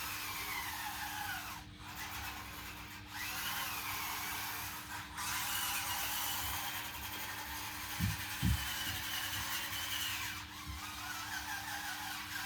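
Small electric drive motors and gearboxes of a 1/16-scale RC bulldozer whining, the pitch rising and falling with the throttle and cutting out briefly a few times. Two low knocks come a little past the middle.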